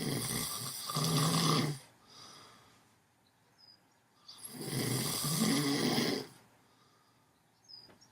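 Snoring in a sleeper: two long snores with a low buzz, the first right at the start and the second about four seconds in, and a softer breath between them.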